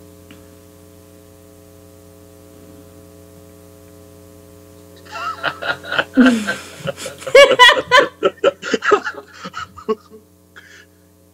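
Steady electrical mains hum. About five seconds in, laughter in quick short bursts for several seconds, then the hum again on its own near the end.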